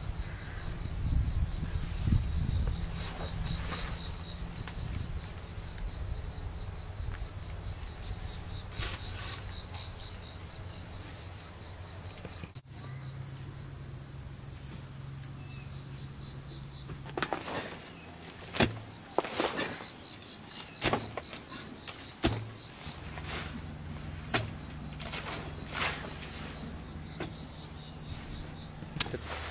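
Insects chirring in a steady, continuous high drone. In the second half, a series of irregular sharp knocks sounds over it.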